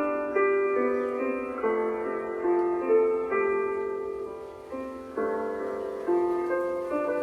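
Slow piano music: notes and chords struck about once a second, each ringing and fading before the next.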